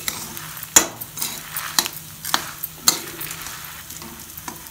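Flat metal spatula stirring and scraping dry-roasting coriander seeds, dals, sesame seeds and dried red chillies around a metal kadai, the seeds rattling. A series of sharp, irregular scrapes, the loudest about a second in.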